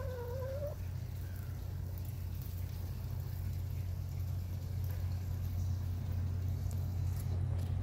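A steady low hum that runs throughout, with one short, soft call from a backyard hen that dips and then rises in pitch at the very start.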